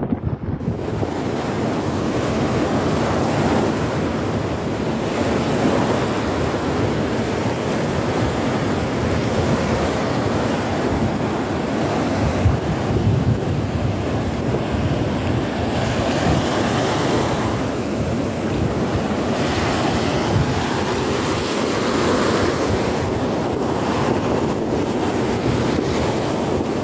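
Shallow sea surf breaking and washing over a sandy beach, swelling and easing every few seconds, with wind buffeting the microphone.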